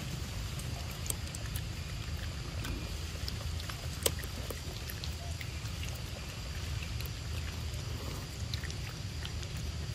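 Outdoor ambience: a steady low rumble with scattered faint ticks, and one sharp click about four seconds in.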